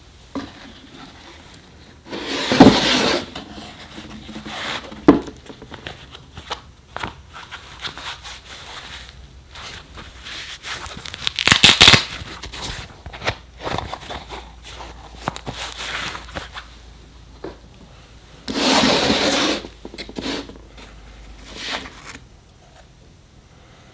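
Close-miked handling of a camera's presentation box and packaging: rubbing, scraping and small clicks and taps, with three louder rustling scrapes, about two seconds in, around twelve seconds in and near nineteen seconds, and a sharp knock at about five seconds.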